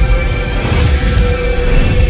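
Droning ambient music: several steady held tones over a continuous deep rumble.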